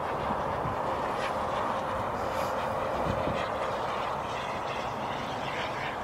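Turbine engine of a BVM Ultra Bandit model jet running in flight, a steady rushing jet sound heard from the ground as the plane passes.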